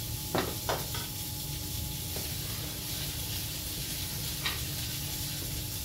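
Sauce of red beer and freshly added veal roast stock sizzling in a sauté pan while a spoon stirs it, with two sharp clinks of the spoon on the pan about half a second in and another around four and a half seconds.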